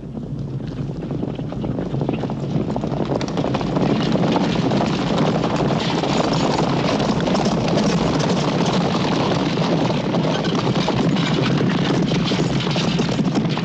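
Many horses galloping, their hoofbeats growing louder over the first few seconds and then holding as a dense, steady clatter on hard ground.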